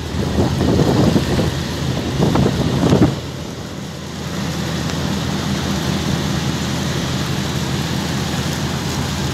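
Wind gusting on the phone microphone for about the first three seconds, then a steady low mechanical hum under a steady hiss.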